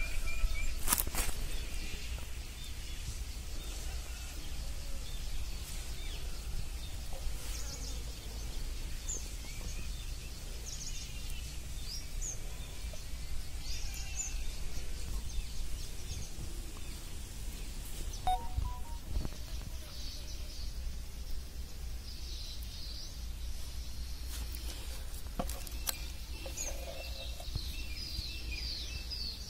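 Outdoor ambience: small birds chirping now and then, more busily near the end, over a steady low rumble, with a few faint taps.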